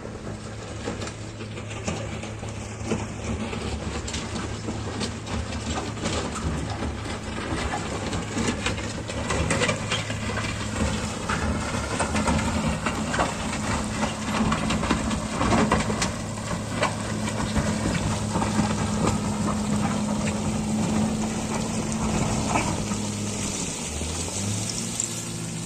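Diesel engine of heavy earthmoving machinery running steadily, with scattered clicks and rattles over it.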